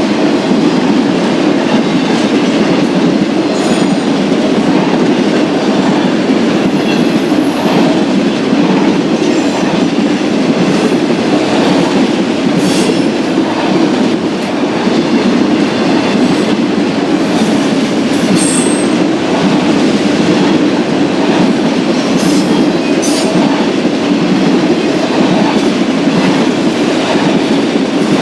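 Freight train cars rolling past with a steady, loud rumble of steel wheels on rail, and a few brief, faint high-pitched wheel squeals along the way.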